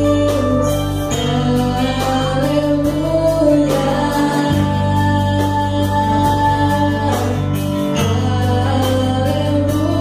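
Women's choir singing a slow gospel song together with a live church band of electric bass, drum kit and keyboard. Long held bass notes and gliding sung lines, with steady drum hits under them.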